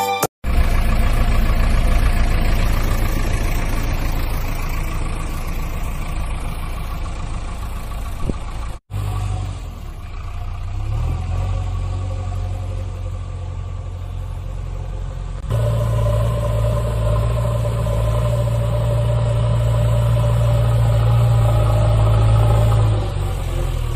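Dubbed engine sound effect of a heavy digger or tractor running steadily, a low engine note. It breaks off abruptly a few tenths of a second in and again about nine seconds in, where the sound is spliced, and runs louder from about fifteen seconds on.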